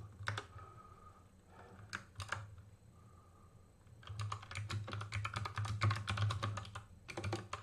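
Typing on a GK61 60% mechanical keyboard with clicky Kailh Box Pink switches and PBT keycaps: a few keystrokes, a pause with a couple of lone strikes, then fast continuous typing from about four seconds in.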